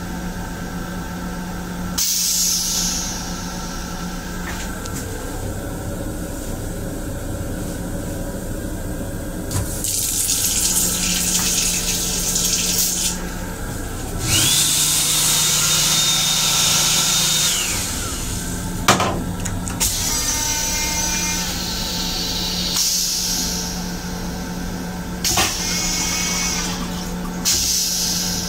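An M7 railcar's restroom toilet and sink running in turn: several bursts of rushing water and air lasting a few seconds each, one of them carrying a steady high motor whine, and a sharp click about two-thirds of the way through, all over the car's steady low hum.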